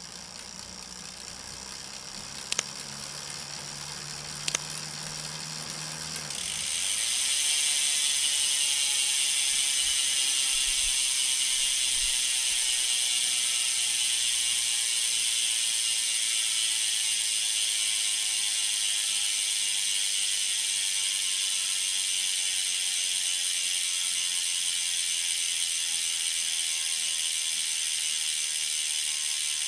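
Vision Trimax 35 rear wheel's freehub buzzing steadily as its pawls ratchet while the wheel coasts on a stand, the pitch slowly falling as the wheel slows; the hub has about 7000 km of use. For the first six seconds the chain drivetrain turns under pedalling with a lower whir and two sharp clicks, before the buzz starts abruptly as the cranks stop.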